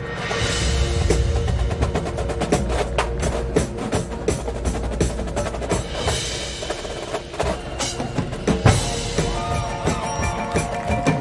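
High school marching percussion section playing a drum feature: snare drums, tenor drums and bass drums in fast, dense strokes, with pitched percussion tones sounding over them. The playing swells louder twice, about a second in and again past the middle.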